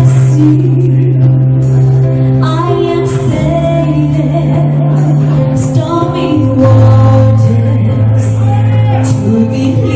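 A slow pop song with singing over a steady backing accompaniment.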